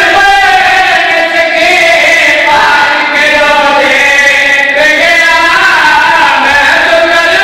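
Men's voices chanting a Shia mourning lament through a microphone and loudspeakers, holding long drawn-out notes that slide slowly from one pitch to the next.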